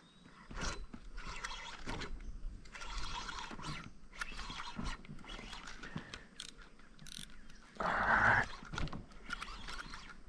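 Irregular scraping and rustling with a few sharp clicks, from gear being handled aboard a fishing kayak; the loudest burst comes about eight seconds in.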